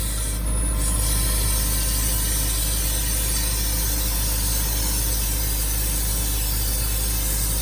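Ingersoll Rand air compressor running steadily: an even mechanical clatter with hiss. Right at the start a heavier deep drone drops away and the level falls a little.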